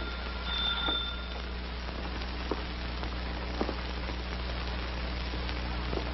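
A doorbell ringing with a steady, high, two-note tone that stops about a second and a half in. It is followed by a few soft, widely spaced thumps over a steady low hum.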